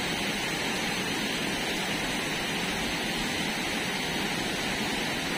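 Waterfall in a gorge giving off a steady, even rush of water, running full after heavy rain.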